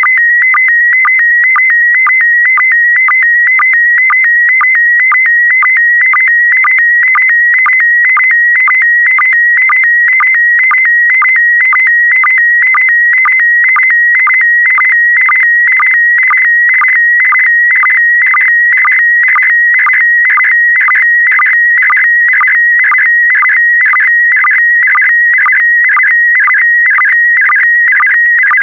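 Slow-scan TV image signal in PD120 mode: a loud, high, warbling electronic tone whose pitch shifts to carry the picture's brightness and colour. It is interrupted by a short sync pulse about twice a second, one for each pair of picture lines.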